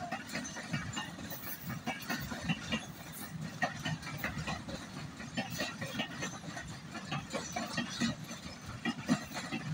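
A freight train of oil tank wagons rolling past, with the wheels clicking and knocking irregularly over the rail joints above a steady rumble.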